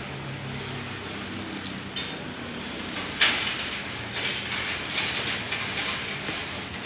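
Handling noises from unboxing a CCTV camera: a few light clicks, a sharp louder click about three seconds in, then a stretch of noisy handling sounds.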